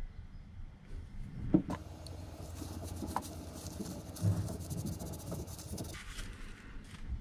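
A cloth rag rubbing and wiping a steel bicycle pedal spindle: a rustling scrub of a few seconds, broken by a few small clicks and knocks as the metal parts are handled.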